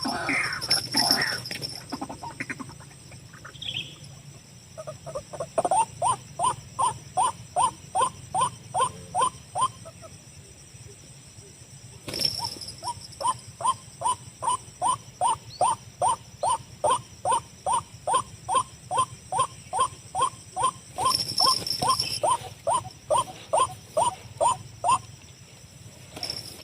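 White-breasted waterhen (ruak-ruak) calling, a long run of repeated rising notes at about two or three a second. The run breaks off for a couple of seconds and then resumes, over a steady high-pitched whine in the background.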